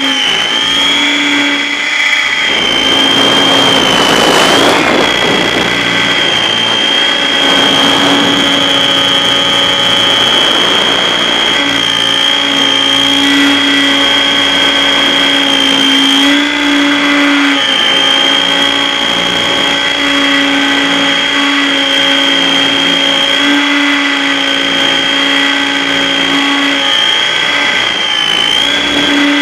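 Trex 800 Trekker RC aircraft's motor and propeller in flight, picked up by the camera on the airframe: a steady high whine over a lower hum, with a rush of wind noise about three to six seconds in and slight dips in pitch around the middle and near the end.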